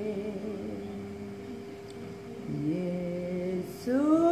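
A woman singing a Batak-language hymn unaccompanied, in long held notes. A new phrase starts about two and a half seconds in, and near the end she slides up into a louder sustained note.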